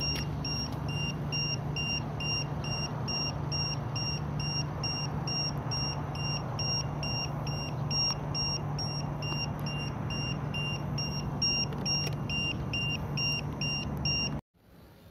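Rapid electronic beeping from radio-control gear for a model helicopter, short high beeps at about three a second, over a steady low hum; it all cuts off suddenly near the end.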